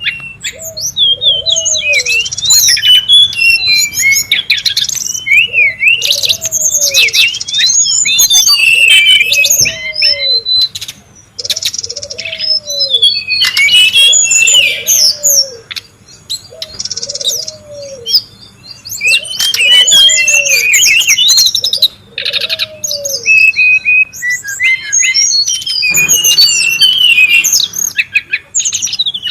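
Brown-chested jungle flycatcher lure calls: a busy, dense chorus of overlapping high chirps, trills and whistled glides. Under them a low arched note repeats about every second and a half, stopping a few seconds before the end.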